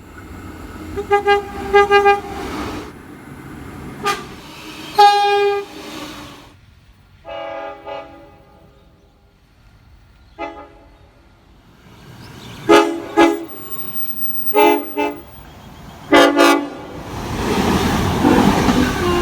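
Locomotive air horns sounding a series of short blasts and a few longer ones, in changing chords. Near the end a loud, rising rush of train noise builds up.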